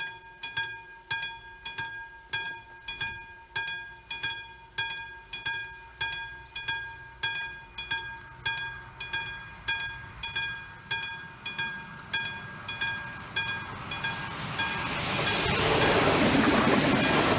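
Level-crossing warning bell of AŽD71 signals ringing in a steady, even rhythm of about two and a half strikes a second. From about twelve seconds in, a diesel railcar approaches and passes over the crossing. Its running noise swells to the loudest part near the end while the bell keeps ringing.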